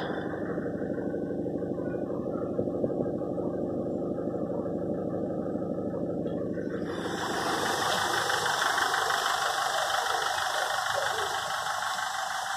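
Ford Figo engine idling steadily, heard first from inside the cabin. From about seven seconds in it is heard from outside the car, with a steady hiss alongside it.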